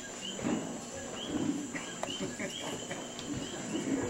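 Night chorus of coquí frogs: many short, high chirps overlapping in an irregular stream, over a faint low murmur of people.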